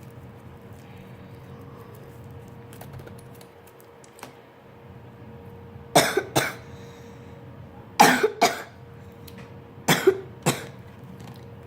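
A person coughing in three short fits about two seconds apart, each of two or three coughs. It is a cough she has had for several days.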